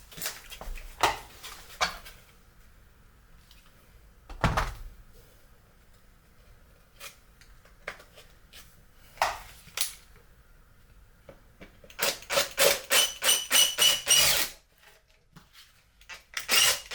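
Tool and handling noise while clearing a hole in a 3D-printed plastic sword segment: scattered clicks and knocks, a dull thump about four seconds in, then a quick run of about ten sharp rasping strokes near the end.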